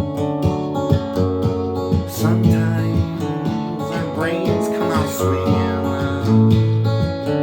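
Music: strummed acoustic guitar chords with a steady rhythm, and a voice singing faintly in places.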